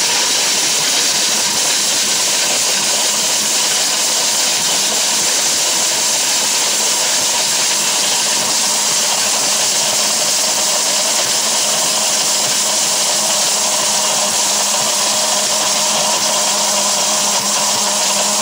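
Electric blender motor running flat out, its blades grinding dried turmeric pieces into powder: a loud, steady whirring that holds an even pitch.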